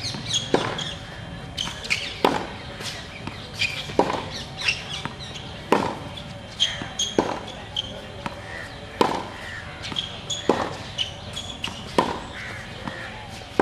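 Tennis rally on a hard court: a sharp pock of racket on ball about every one and a half seconds, with fainter ball bounces between strikes and short high chirps scattered through.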